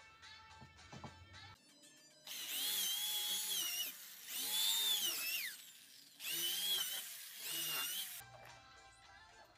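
Corded electric drill boring into a wooden frame joint in three runs of one to two seconds each. Its whine rises and falls in pitch as the trigger is squeezed and eased.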